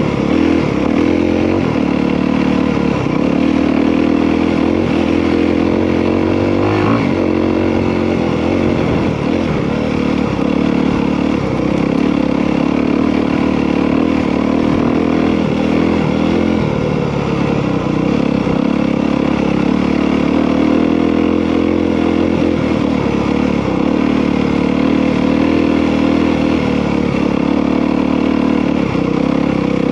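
Honda CRF250R's single-cylinder four-stroke engine running under way on a dirt trail, its pitch rising and falling again and again as the throttle is opened and closed.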